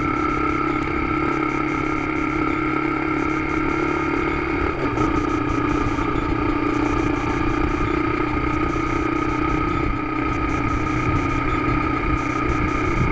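Motorcycle engine running steadily while riding along a road, picked up by a camera mounted on the bike, with a steady hum of road and wind noise. The engine note shifts slightly about five seconds in.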